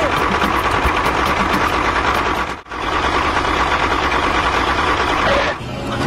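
A toy tractor's motor running steadily with a buzzing, engine-like noise. It breaks off for an instant about two and a half seconds in, then stops shortly before the end.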